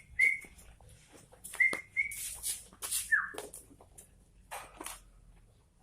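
Caged bulbul giving short, clear whistled notes, four brief level ones and one down-slurred note about three seconds in, mixed with sharp clicks and rattles.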